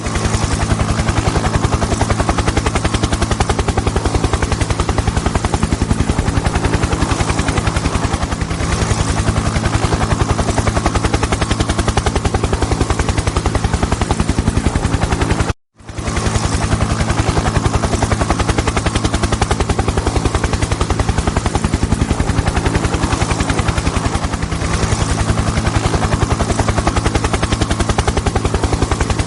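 Helicopter running steadily: a rapid, even chop of the rotor blades over a steady engine hum. The sound drops out for a split second about halfway through, then carries on as before.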